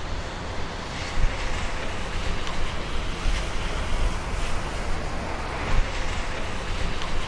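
Steady rushing noise with a strong, fluctuating low rumble.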